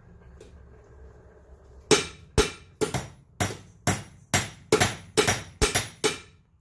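Hand hammer striking a hot steel bar on an anvil in steady repeated blows, about two and a half a second, each with a short ring; the blows start about two seconds in. The hammering forms the shoulder for the bottle opener's hook.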